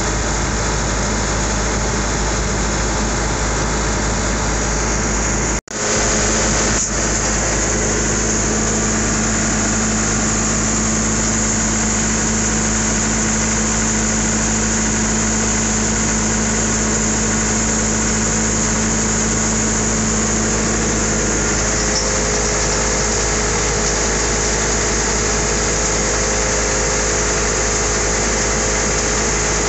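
Farm machinery running steadily while feed pellets are unloaded from a bulk bag, a constant engine-like hum. It drops out for a moment about five and a half seconds in, then carries on.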